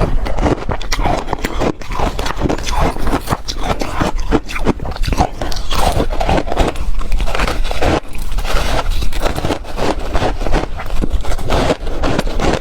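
Ice being bitten and chewed: a loud, unbroken run of crunches and cracks.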